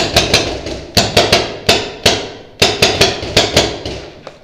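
Paintball markers firing rapidly indoors: an uneven volley of about fifteen sharp cracks in clusters, each ringing briefly off the hard walls.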